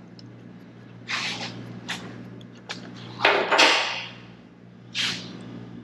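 Knocks and clicks of tool and hand work on an old outboard motor as its spark plug is taken out. There are a few separate sharp sounds, the longest and loudest a scraping clatter about three and a half seconds in, over a steady low hum.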